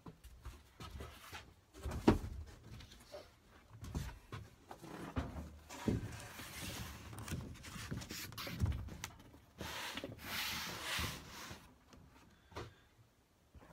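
A large cardboard template sheet being handled and pressed flat against the bus's curved sheet-metal wall and ceiling: scattered knocks and rustles, a sharp thump about two seconds in, and longer scraping rustles around six and again ten seconds in.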